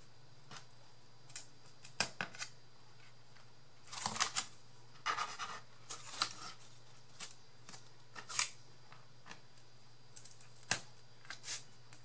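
Small cut wooden sticks clicking and scratching against cardboard and the table as they are picked up and pushed into a row of holes in a cardboard sheet, in scattered light taps with a busier run of rustling a few seconds in and one sharper click near the end. A faint steady hum runs underneath.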